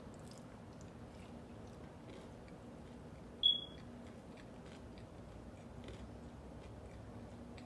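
Close-miked chewing of fast food, with faint, scattered wet mouth clicks. About three and a half seconds in there is one brief, high-pitched clink, the loudest sound. A steady low hum runs underneath.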